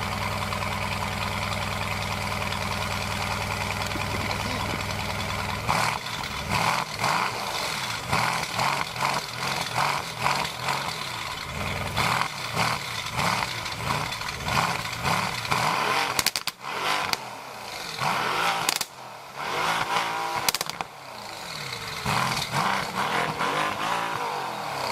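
A high-performance car engine idling steadily, then revved hard in quick repeated blips, each rising and falling in pitch about once a second, with a few sharp cracks in the middle of the revving.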